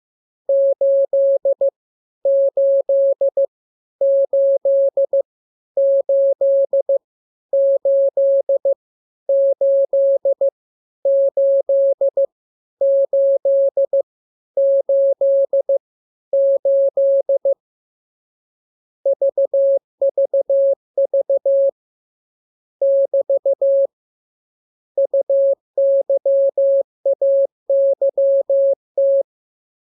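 Morse code training tone: a single-pitched beep keyed in dots and dashes. For the first half it sends the same short group over and over at even spacing, then after a brief pause it goes on with other characters.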